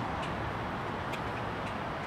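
Steady hum of city street traffic, with a few faint ticks.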